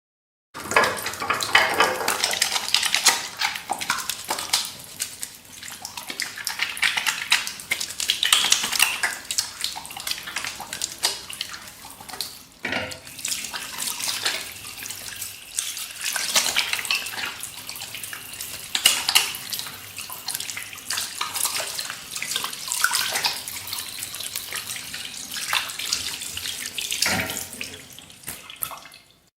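Hands being washed under a running tap: water splashing and sloshing over the hands in the sink, with irregular wet rubbing and spattering. It fades out just before the end.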